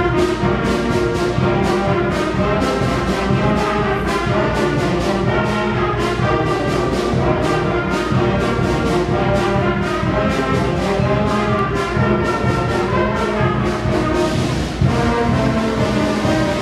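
School concert band playing, with the brass, trombones among them, out in front over a steady percussion beat.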